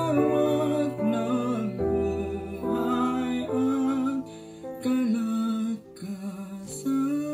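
A man singing a ballad over a backing track, holding long notes that waver in pitch.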